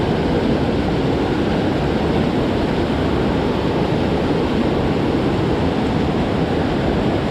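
Steady rush of a mountain creek's running water, an even hiss with no breaks.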